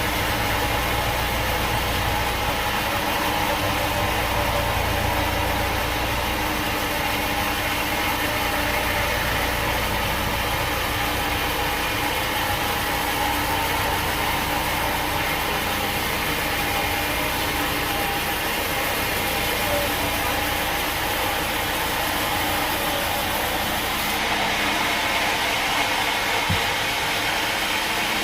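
Sawmill machinery running steadily with a steady mechanical hum. About three-quarters of the way in the deep rumble drops away and a lighter, clattering mechanical sound comes forward.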